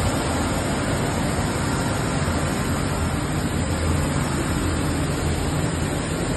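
Plastic film pelletizing line running: a steady, dense machine noise with a low hum underneath.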